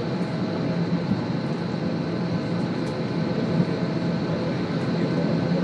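Steady rumble and hum inside a commercial airliner's cabin as it taxis toward the runway, with a thin, steady high whine above it.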